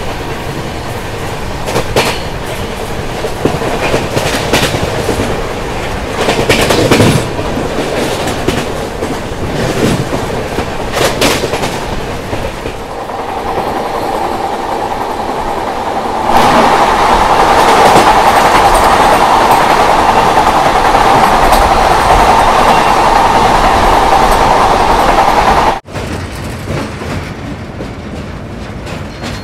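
Express passenger train running at speed, heard from the side of a moving coach: steady rushing wind and rolling noise with wheels knocking over rail joints. Just past halfway it grows louder, with a steady high ringing whine that cuts off abruptly near the end.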